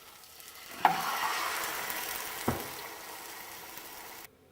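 Spanish potato omelette sizzling in a hot frying pan. The sizzle starts with a clunk about a second in, there is a second knock midway, and it dies down slowly before stopping abruptly near the end.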